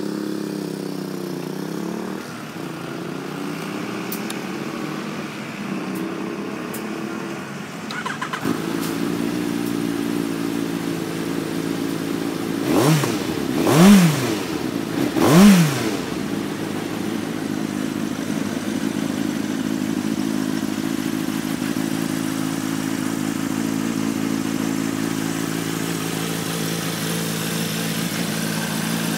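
2015 Yamaha XJR1300C's air-cooled inline-four, breathing through an Akrapovič aftermarket muffler, fires up and runs at an uneven idle, then settles into a steady idle about eight seconds in. Around the middle it gets three quick throttle blips, each revving up and dropping straight back, the last two the loudest, before it returns to idle.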